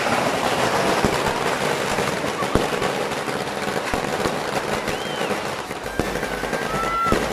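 New Year's fireworks going off all around: dense, continuous crackling and popping with a few louder bangs, and two brief whistling tones, one about five seconds in and one near the end.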